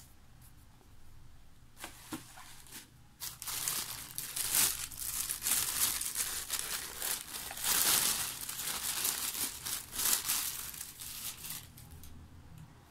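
Thin plastic shopping bag crinkling and rustling as hands dig into it and pull out a shrink-wrapped book. After a few light crackles, the rustling gets loud about three seconds in and dies down near the end.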